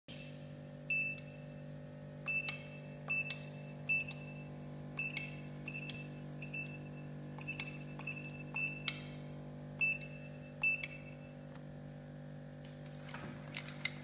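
Stainless steel 4x4 industrial metal keypad being typed on, one key at a time. Each press gives a click and a short high beep from the keypad's buzzer, about a dozen presses at an uneven pace. Near the end there are a few handling clicks as the keypad is picked up.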